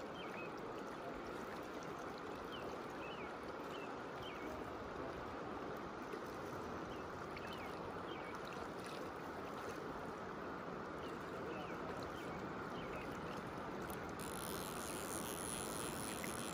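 A wide, shallow creek's current flowing past the bank as a steady, even rush, with a few faint, short high chirps in the first half.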